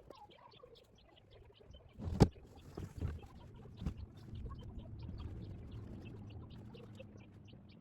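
Modular dock sections being handled in the water: a sharp knock about two seconds in, then lighter knocks about a second and two seconds later, over a low rumble, with small high ticks or chirps scattered throughout.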